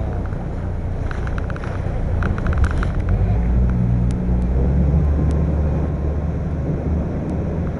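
Boat engine running underway with a steady low drone, wind buffeting the microphone. A short clatter of sharp clicks sounds between about one and three seconds in.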